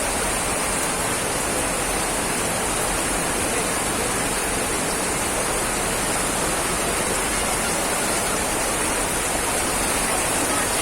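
Cold lahar, a volcanic mudflow of water and debris, rushing down its channel with a loud, steady rush.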